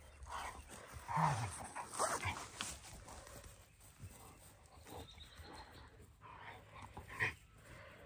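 A dog making a few short vocal sounds, the loudest about a second in, with scattered clicks and knocks around it.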